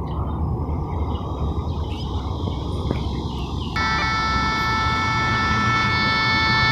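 A steady low rumble of outdoor noise, then, a little over halfway in, background music enters with long held, reedy notes and plays on over the rumble.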